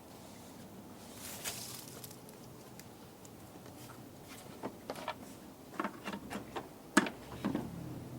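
Hands handling air intake and filter parts: a brief rustle about a second in, then a run of light clicks and knocks, the sharpest about seven seconds in.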